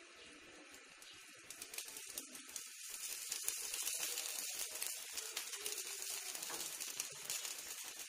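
Wo, a black-lentil patty topped with egg, frying in a flat pan: a sizzle with many fine crackles that grows louder about two seconds in.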